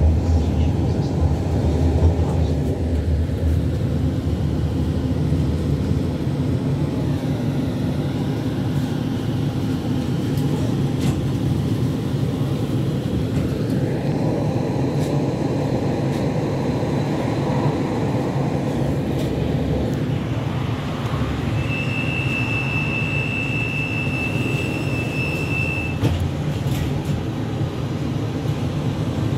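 Running noise inside a Škoda 15T low-floor tram under way: a steady low rumble with faint whines gliding up and down in pitch. About three-quarters of the way through, a steady high tone sounds for about four seconds.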